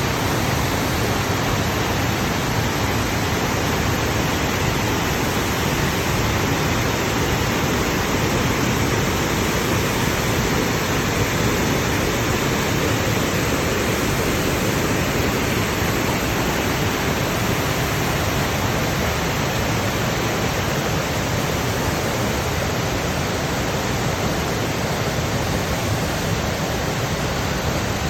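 The Great Falls of the Passaic River: a large waterfall's steady rush of falling water, even and unbroken throughout.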